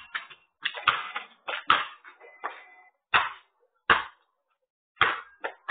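Basketball bouncing on asphalt: four separate thuds about a second apart, heard through a security camera's microphone.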